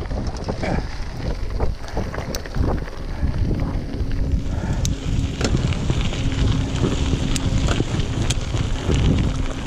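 Wind buffeting the microphone while a mountain bike rolls over a dirt trail, a steady rumble with tyres on loose dirt and many small clicks and rattles from the bike over bumps.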